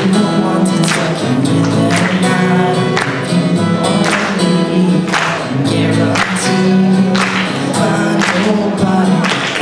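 Young male voice singing over a strummed steel-string acoustic guitar, with the strums falling in a steady rhythm about once a second.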